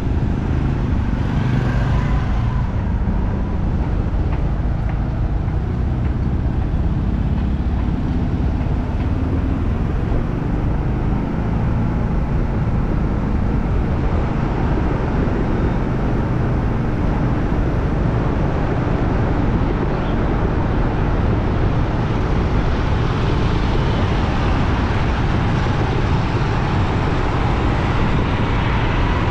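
Steady city street traffic noise, a dense mix of vehicle engines and road noise with no single event standing out.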